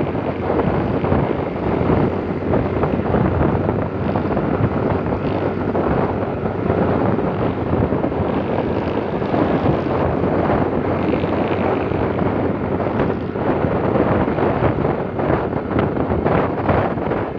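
Wind buffeting a phone's microphone on a moving motorcycle, a steady rushing noise with the motorcycle's engine and road noise under it.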